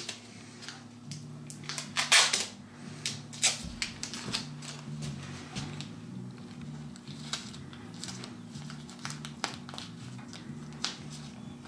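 Paper masking tape ripped off the roll about two seconds in, followed by repeated small crackles and crinkles as the tape is wrapped and pressed around a furry ear.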